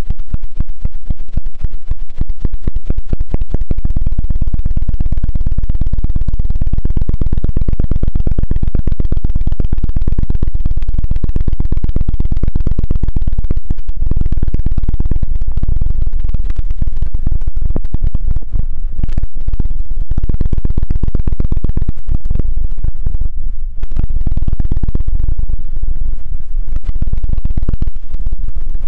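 Fast, continuous ASMR scratching and tapping right on the microphone: very loud and close, with a heavy low rumble and strokes too quick to count. There is a brief dip about two-thirds of the way through.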